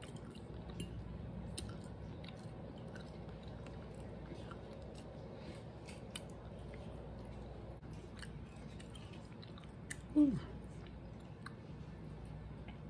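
Close-up chewing and wet mouth sounds of a person eating chitterlings, with scattered light clicks. About ten seconds in there is a brief voice sound falling in pitch.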